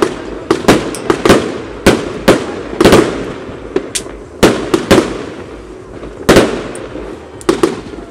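Rubro '4 Seasons' 100-shot fireworks cake firing: sharp bangs of shots launching and bursting in quick, irregular succession, with a short lull about two-thirds of the way through.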